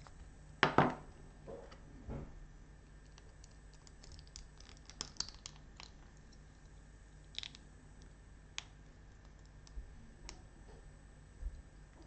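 Small plastic clicks and scrapes: a hobby knife shaving excess plastic off a Dayan Gem 6 puzzle piece and the pieces being pressed together to test whether they now fit. The loudest scrape comes about a second in, followed by sparse light clicks and a short flurry of ticks.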